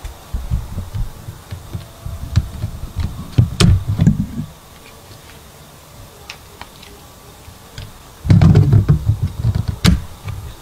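Footsteps and handling bumps from a person walking with a handheld camera through dry weeds, in two bursts of irregular thuds and rustling with a few sharp snaps.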